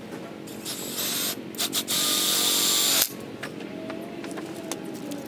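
Milwaukee impact driver with a hex nut-driver bit driving a self-drilling hex head screw through a bracket into a steel fence pole: a short burst about a second in, then about a second of steady running that stops abruptly.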